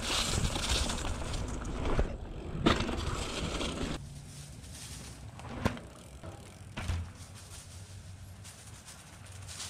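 Mountain bike ridden over a dirt jump: tyres rolling over dry dirt and leaves for about four seconds with a couple of knocks, then quieter, with two single knocks a second or so apart.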